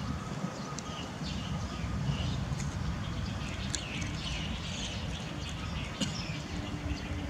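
Small birds chirping on and off in the background over a steady low rumble, with a couple of sharp clicks.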